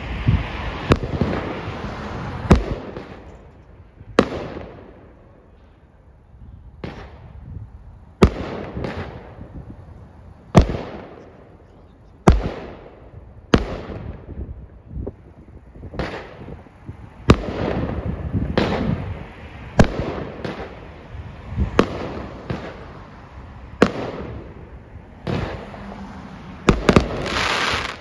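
Pyro Diablo 'Go Hard Or Go Home' 16-shot 200-gram firework cake firing its shots one after another. Each shot is a sharp bang about every one to two seconds, and each bang trails off. The last few shots come in a quick cluster near the end.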